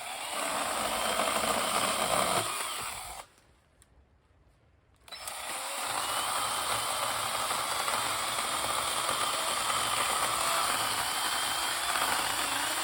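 Kobalt 24V brushless 6-inch battery pruning saw running and cutting through wood in two runs: about three seconds of cutting, a short pause of about two seconds, then steady cutting again to the end, with a thin motor whine over the chain noise.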